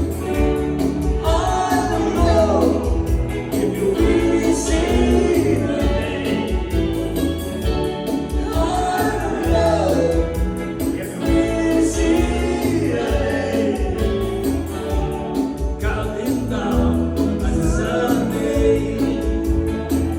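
A song: singing voices over instrumental accompaniment with a steady beat.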